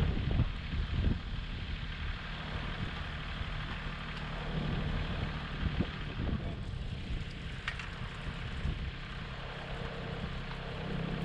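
An engine running steadily at idle, with a few short knocks over it.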